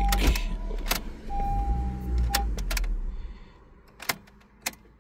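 Honda Civic's engine idling, then dying away about three seconds in as it is switched off, with sharp key clicks and jingles at the ignition. A steady electronic tone sounds on and off over it.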